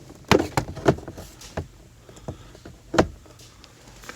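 Sharp plastic clicks and knocks from the glove compartment's plastic retaining pieces being pushed in and worked free. There are several in the first second and one louder knock about three seconds in.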